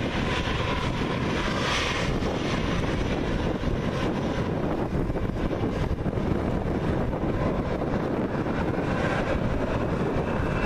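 Jet engines of a Boeing 777 airliner moving along the runway, a steady deep noise, with wind buffeting the microphone.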